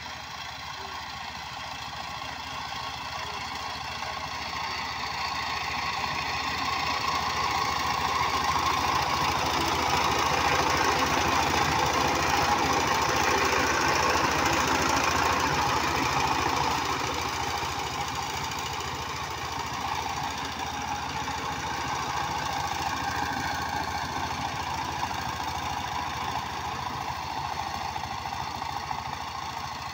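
Power tiller's 12-horsepower single-cylinder diesel engine running steadily under load while tilling a field. It grows louder as the tiller passes close, about halfway through, then fades as it moves away.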